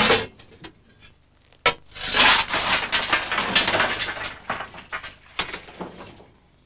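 A steel shovel scraping into coal and lifting a load, with a gritty crunching and rattling of lumps for about three seconds that dies away, after a single sharp knock about a second and a half in.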